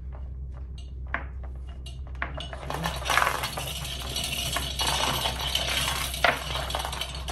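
Steel chain of a manual chain hoist clinking as the hand chain is pulled. A few separate clinks at first, then a continuous metallic rattle from about two and a half seconds in, with one sharper clank near the end, over a low steady hum.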